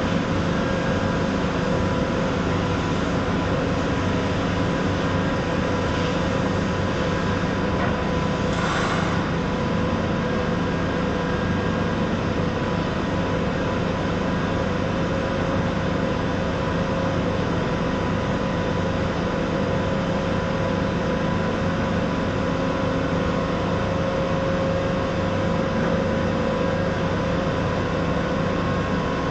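TIG welding machine running with a steady electrical hum and hiss that does not change throughout.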